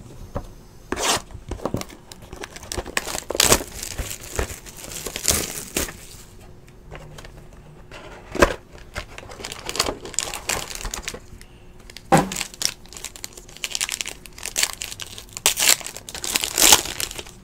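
Hands opening a Panini Limited basketball card box: cardboard rustling and scraping with a few sharp knocks, then a foil card pack crinkling and tearing open near the end.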